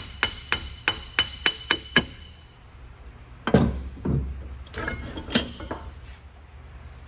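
Hammer tapping a Land Rover Series III half axle out of its drive flange held in a vise: a quick run of about eight light metal-on-metal taps with a ringing note in the first two seconds, then a couple of heavier knocks about a second and a half later and a few lighter clinks.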